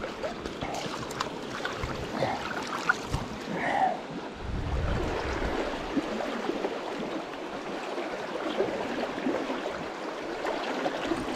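Shallow, swift mountain river running over a rocky riffle: a steady rush of flowing water, with a brief low rumble about four seconds in.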